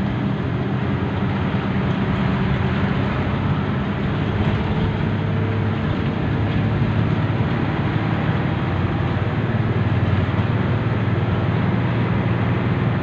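Bus engine running steadily at highway speed with tyre and road noise, heard from inside the bus as a constant low drone.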